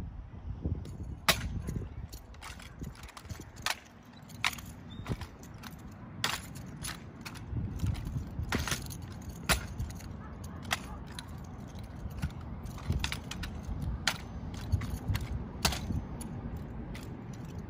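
Exhibition drill rifle being spun, tossed and caught: sharp, irregular slaps and clacks as the rifle strikes the driller's hands, starting about a second in, over a low steady rumble.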